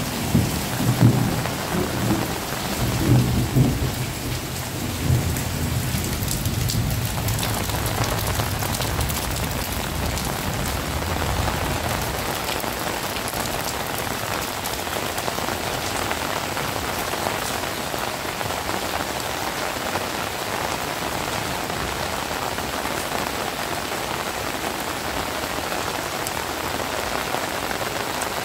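Heavy rain pouring down steadily, with a rumble of thunder in the first few seconds that dies away over the next several, leaving only the even hiss of the downpour.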